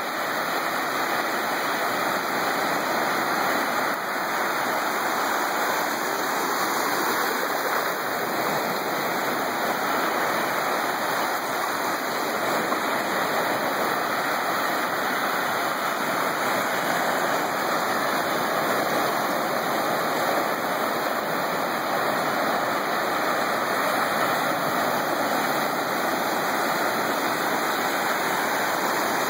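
Small ocean waves breaking and washing on the beach, a continuous, even hiss of surf.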